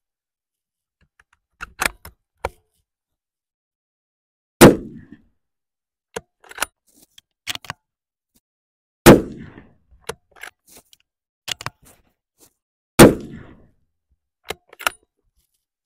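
Three rifle shots from a Bergara B-14 Wilderness Ridge bolt-action rifle in .300 Winchester Magnum, about four seconds apart, each a sharp crack with a short tail. Between the shots come lighter clicks as the bolt is worked to chamber the next round.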